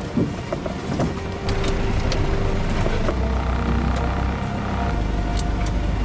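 Toyota FJ40 Land Cruiser's engine running at low revs as it crawls down a slippery mud track, with scattered knocks and clicks from the truck. The engine rumble gets louder about one and a half seconds in and then holds steady.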